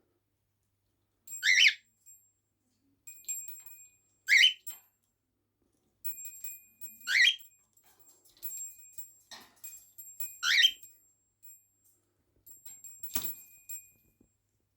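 An animal giving short, high-pitched squeaky calls, one about every three seconds, with faint clicks between them.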